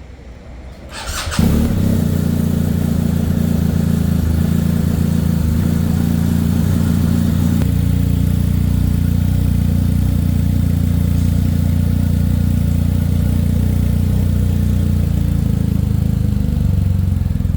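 Motorcycle engine started on its electric starter with a brief whine about a second in, then catches and runs steadily.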